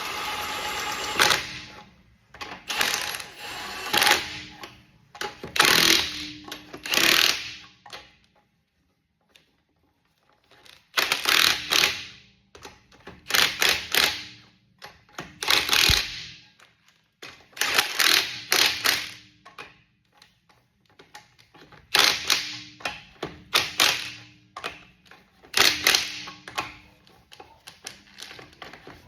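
Cordless impact wrench hammering wheel nuts tight on a car wheel, in repeated short bursts about a second long, often two in quick succession, with brief pauses between nuts.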